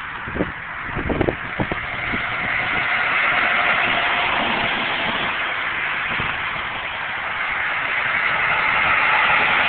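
Highway traffic passing at speed: a steady rush of tyre and engine noise that swells twice as tractor-trailers go by. A few short knocks come about a second in.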